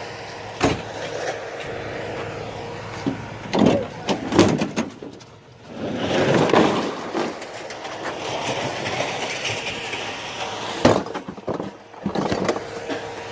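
Knocks, clunks and shuffling of a mini fridge being handled and unloaded for scrap. A steady hum runs under the first three seconds.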